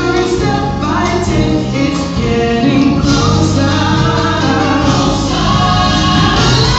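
Gospel music: a choir singing held, sustained lines over low sustained accompaniment, played for a liturgical dance.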